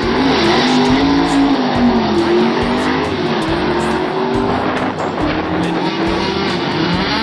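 1974 Dodge Dart engine revving hard with tires squealing, the engine pitch rising and falling.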